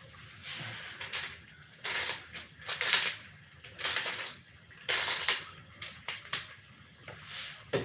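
Seasoning shaken from a small container over a cooking pot: a series of short, irregular shakes, each a brief hiss.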